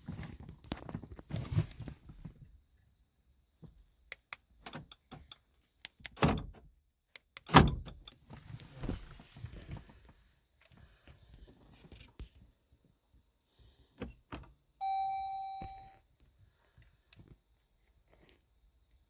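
Car keys jangling and clicking with scattered handling noises, two loud thuds about six and seven and a half seconds in, and a steady electronic beep of about a second near the end. No engine cranks or runs, as when a newly programmed key fails to start the vehicle.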